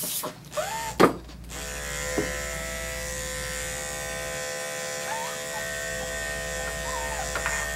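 A few short hissing bursts in the first second and a half, the loudest about a second in, then an Andis Excel 5-speed dog grooming clipper runs with a steady hum as it clips through a dog's coat.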